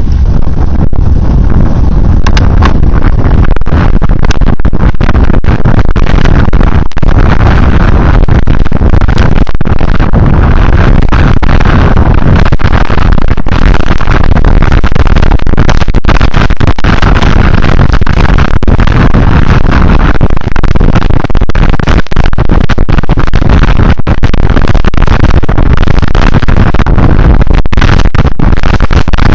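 Heavy wind buffeting the microphone of a moving vehicle, very loud and distorted, with a vehicle running beneath it.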